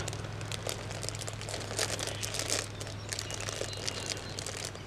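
Clear plastic bag wrapped around plastic model kit runners crinkling irregularly as the runners are handled and turned over.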